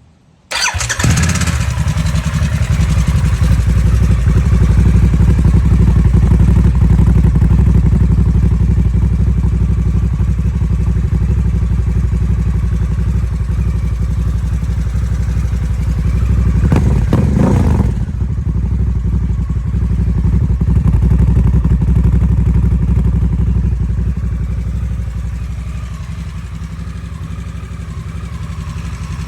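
A 2022 Harley-Davidson Nightster's liquid-cooled Revolution Max V-twin starts up about half a second in and settles into a steady idle through the exhaust. It is blipped once around the middle and then idles more quietly near the end.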